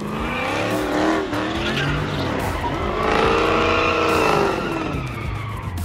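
A car doing donuts: its engine revs high and falls back twice, over tyres squealing and skidding on the pavement.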